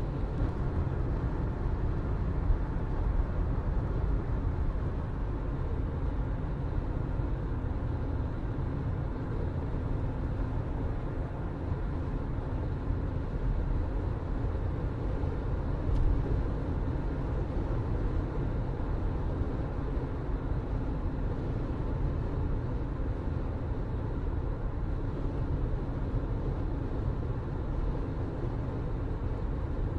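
Steady low rumble of a moving vehicle, unbroken throughout.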